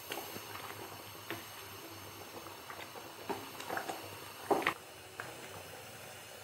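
Wooden spoon stirring thick chickpea gravy in a steel pan: soft squelching with scattered knocks of the spoon against the pan, the loudest about four and a half seconds in, over a faint steady hiss.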